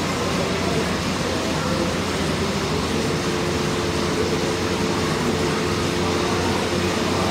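Steady background noise of a busy gym: a constant rumble and hiss, with a faint held tone joining about three seconds in.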